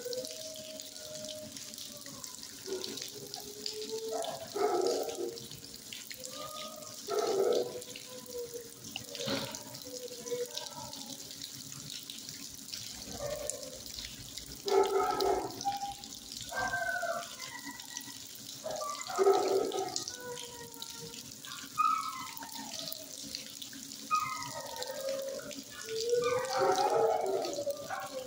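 Dogs barking and howling at intervals, in short calls that bend in pitch, over a steady hiss of running water.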